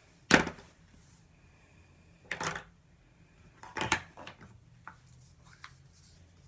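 Sharp plastic clacks of makeup containers being handled and set down: three clear knocks about two seconds apart, the first the loudest, followed by a few faint ticks.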